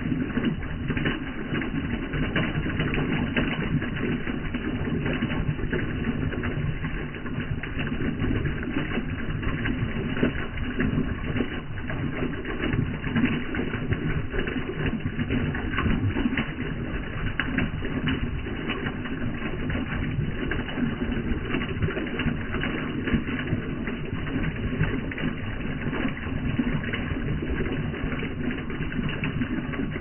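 A jet of water pouring from a pipe and splashing onto wet ground, a steady continuous splashing.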